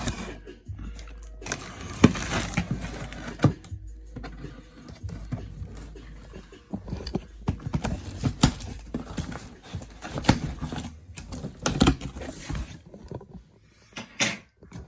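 Cardboard box being cut open and the packaging inside handled: irregular knocks, scrapes and rustling.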